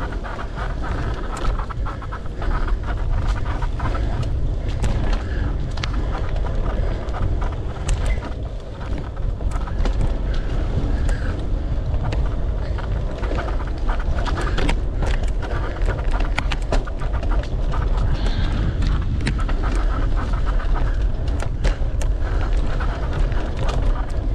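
Mountain bike being ridden along a dirt trail: heavy wind buffeting on the microphone, tyre noise, and frequent clicks and rattles from the bike over rough ground.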